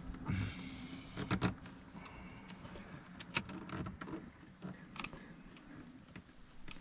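Scattered light clicks and knocks from hands working at a car's interior trim, over a faint low steady hum.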